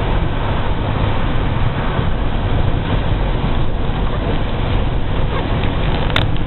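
Truck driving on a road, heard from inside the cab: a steady low engine and road rumble, with two short sharp clicks near the end.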